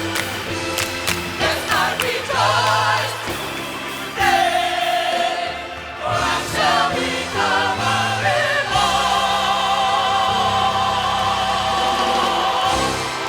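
A church choir singing a gospel song, ending on a long held final note for the last few seconds.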